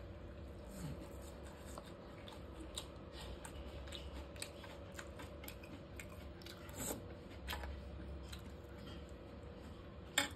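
Light clinks and scrapes of a stainless-steel spoon against a steel thali while sambar is scooped, with one sharper clink near the end, over a low steady hum.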